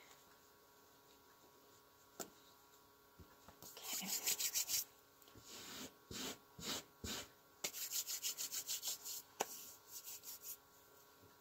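Hands rubbing back and forth over a fabric placemat in several bursts of quick strokes, pressing glued-on metal word cut-outs down onto it.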